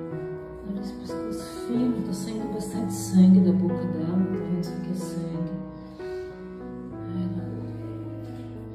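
Background music with long held notes, loudest about three seconds in.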